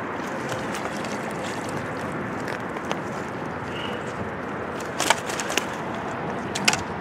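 Steady outdoor background hiss with a few sharp knocks and rattles, a cluster about five seconds in and one more near the end, from a landing net holding a carp being lifted and carried over a stony bank.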